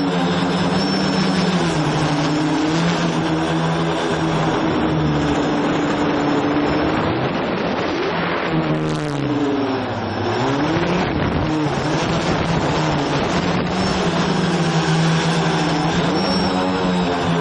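A multirotor quadcopter's electric motors and propellers whine steadily, heard up close from a camera mounted on the craft. The pitch dips and climbs again about halfway through as the throttle changes.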